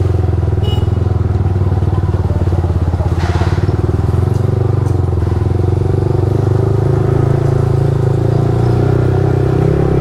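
Single-cylinder motorcycle engine running steadily at low revs under way, its exhaust pulsing evenly, with a slight rise in pitch near the end.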